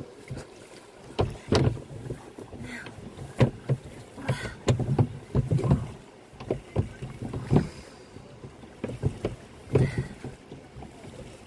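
Canoe paddle strokes: the paddle dipping and pulling through the water with splashes and knocks at an uneven pace of about one a second, the canoe being paddled against a headwind and current.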